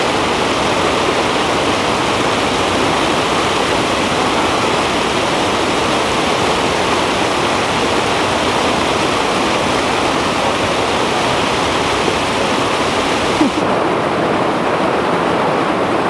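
Shallow trout stream rushing over a rocky riffle: a steady, loud wash of water. About three-quarters of the way through it turns duller and less hissy.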